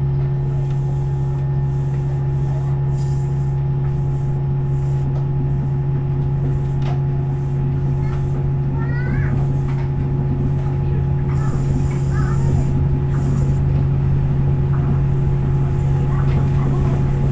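Cabin noise inside a Tokyo Monorail car: a steady low hum with a couple of fainter steady tones over a running rumble, growing a little louder near the end.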